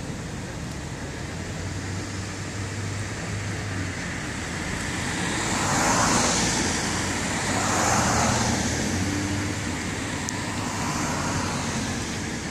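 Street traffic, with two vehicles passing close by: the noise swells and fades around six seconds in and again around eight seconds in, over a steady low traffic hum.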